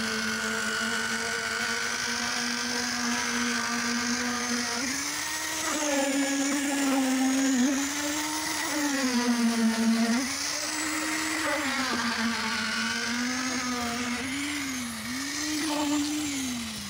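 Electric concrete needle vibrator running, a steady motor hum whose pitch sags and recovers again and again from about five seconds in as the needle is worked through the wet slab concrete.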